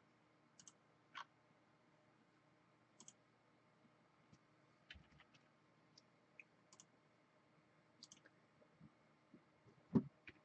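Faint, scattered single clicks of a computer mouse over near-quiet room tone, with one louder low thump near the end.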